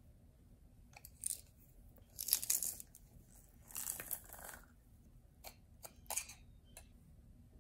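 A garlic clove being crushed in a metal garlic press: a few short crunching, rustling bursts, the loudest about two and a half seconds in, then several light clicks and scrapes as a knife scrapes the pressed garlic off the press.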